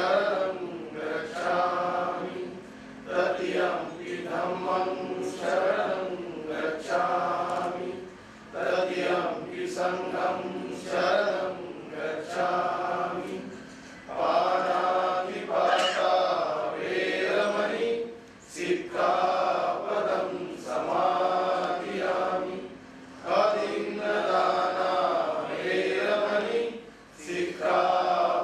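A group of voices singing a prayer together in unison, in long chanted phrases with short pauses between them.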